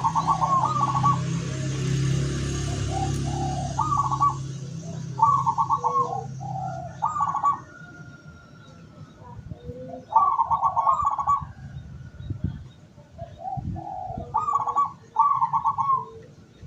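Zebra doves (perkutut) cooing, repeating their short rolling, trilled phrases about nine times, sometimes in quick succession. A low steady hum runs underneath during the first half and then fades.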